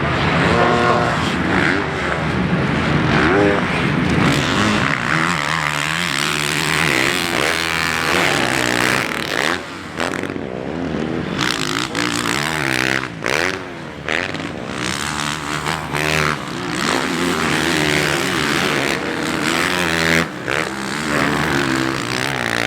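Motocross bikes racing, several engines revving up and down at once with overlapping rising and falling pitch, broken by a few short dips.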